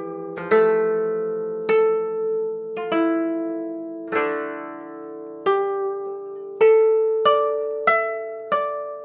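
Koto music: a slow melody of single plucked notes, each ringing out and fading, the notes coming closer together in the second half.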